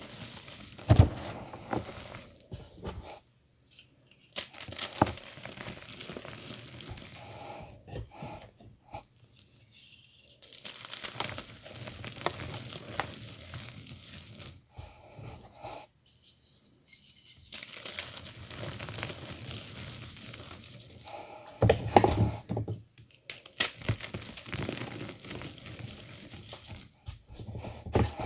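Reformed gym chalk crushed and crumbled by hand, its powder pouring and sifting through the fingers onto a pile: soft crunching and a rustling hiss. There are a few sharper, louder crunches about a second in and again late on, and brief pauses between handfuls.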